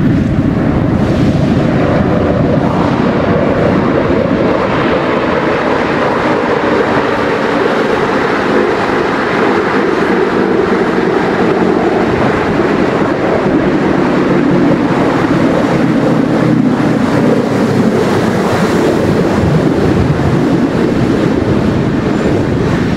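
Metro train pulling into a station and braking: a loud, steady rumble of wheels and motors with a whine that falls slowly in pitch as the train slows.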